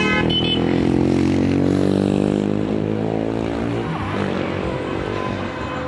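A car driving past close by, its engine and tyre sound falling in pitch and fading over about three and a half seconds, then steady traffic rumble. Two very short high-pitched toots right at the start.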